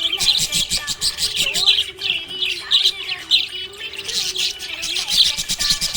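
Budgerigar chatter: a continuous stream of quick, high chirps and warbles, with a faint low wavering tone underneath.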